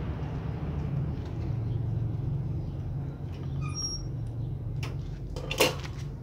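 A steady low background rumble, with faint scattered clicks as kittens eat wet food off a board. There is a short high chirp about four seconds in and a sharp knock a little before the end.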